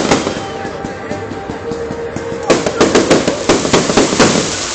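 Fireworks going off: a bang at the start, then, about halfway through, a rapid string of sharp bangs for nearly two seconds.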